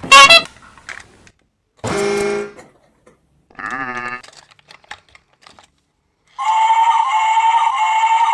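A string of short pitched toy-like sound effects with small clicks between them, then a steady high tone from about six seconds in.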